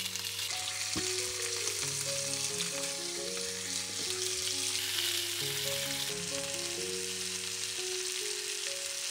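Meat steaks sizzling in olive oil on a hot grill pan, a dense steady hiss, with a couple of light clicks of tongs turning the meat about a second in and about four seconds in.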